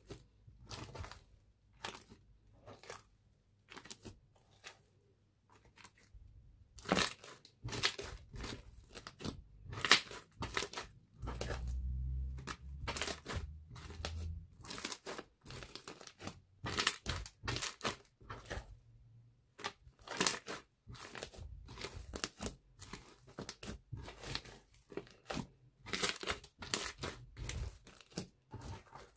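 Thick, glossy brown slime being kneaded, folded and pressed by hand, giving irregular sticky clicks, crackles and small pops. These are sparse at first and come thick and fast after the first several seconds, with a soft low rumble for a few seconds midway as the slime is pressed flat.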